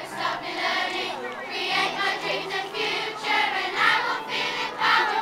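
A large crowd of primary-school children singing together in unison, with steady held low notes beneath the voices.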